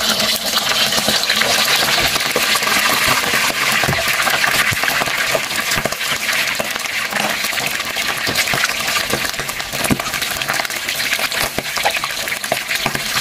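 A slab of pressure-cooked, chilled, scored pork frying in very hot vegetable oil in a wok: a loud, steady sizzle with constant popping and crackling as the oil bubbles hard around it.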